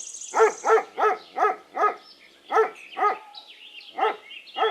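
Dog barking: a run of about nine short, sharp barks at an uneven pace. Birds chirp faintly behind the barks in the second half.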